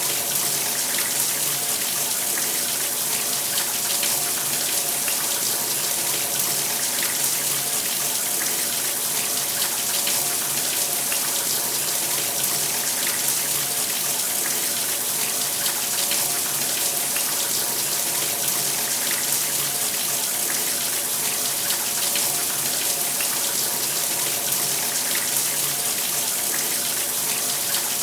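Shower running: a steady spray of water hissing down onto a surface, even with no changes.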